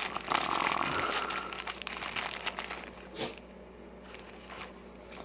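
Blind-box packaging crinkling and rustling in the hands as a small collectible figure is unwrapped, with one sharper crinkle about three seconds in.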